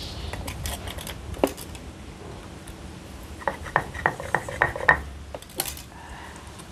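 Small metal utensil clinking and scraping against a mortar while mixing sambal, with a quick run of about eight ringing taps midway and a brief rasp near the end.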